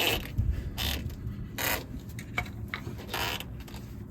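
Hand tools scraping and creaking on a stuck part as a carburetor is taken apart. There are several short rasping strokes about a second apart and a couple of light metallic clicks between them.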